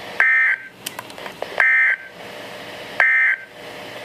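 Three short identical bursts of warbling SAME digital data tones from a NOAA Weather Radio broadcast, about a second and a half apart, over a steady radio hiss. This is the Emergency Alert System end-of-message code that closes the warning.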